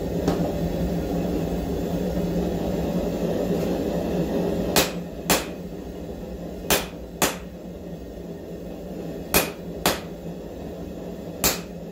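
Hand hammer striking hot 5160 coil-spring steel on an anvil, the blows coming in pairs about half a second apart, each ringing briefly, over a steady forge roar.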